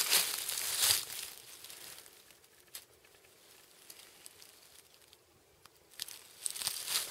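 Rustling and crunching of a person moving through the bush: footsteps in dry forest litter and clothing brushing near the microphone. It is loud for about the first second, drops to a few faint ticks in the middle, and starts again about six seconds in.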